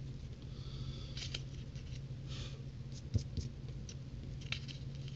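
A few short, scattered scratching and rustling strokes as cardboard scratch-off lottery tickets are scratched and handled on a tabletop, over a steady low hum.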